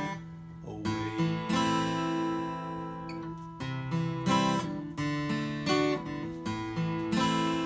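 Acoustic guitar strummed slowly, each chord left to ring out between strokes.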